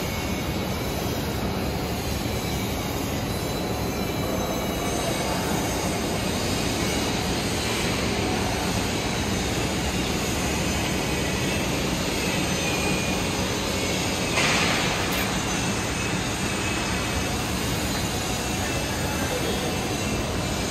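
TIG welding the capping pass on a stainless steel pipe joint: a steady hiss amid continuous workshop noise, with faint high squealing tones. A brief louder hiss comes about fourteen seconds in.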